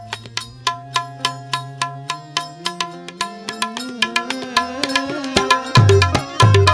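Instrumental interlude of a devotional bhajan: tabla keeps a steady beat of about three strokes a second under held harmonium notes. About halfway through, the bass drum's tone slides upward, and near the end heavy deep bass strokes come in.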